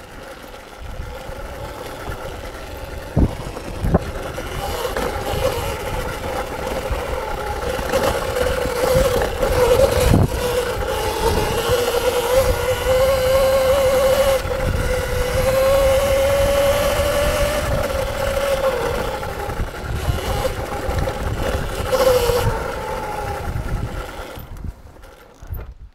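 Electric dirt bike's motor and drivetrain whining under way, the pitch climbing a little, holding, then easing off near the end. Underneath is a low rumble, with a few sharp knocks from the bike going over bumps.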